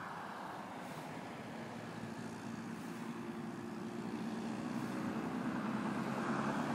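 Piper J3 Cub's engine and propeller at takeoff power, a steady drone that grows louder as the plane comes closer, its pitched hum emerging about two and a half seconds in.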